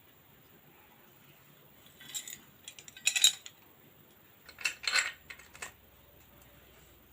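Metal objects clinking and clattering in three short bouts, about two seconds in, around three seconds and around five seconds.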